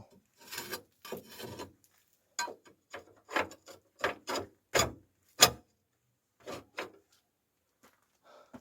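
A string of short scrapes and knocks of wood and metal as a wood stove is worked: logs shifted and a flue lid handled. The sharpest knock comes about five and a half seconds in, and the sounds die away near the end.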